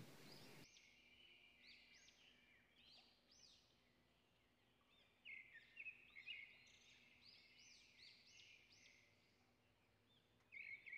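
Near silence, with faint, repeated high-pitched chirps of small birds in the background.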